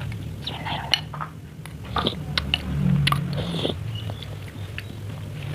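Close-miked chewing and biting: wet mouth sounds broken by irregular sharp crunches as seblak with meatballs and raw jengkol is eaten. A steady low hum runs underneath.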